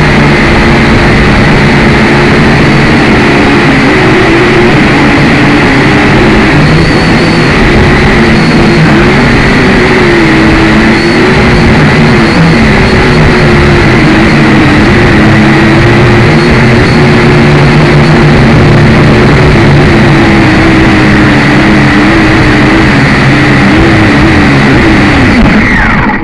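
Syma X5C quadcopter's small motors and propellers whirring loudly and steadily, the pitch wavering up and down as the throttle shifts. Near the end the pitch falls and the motors wind down.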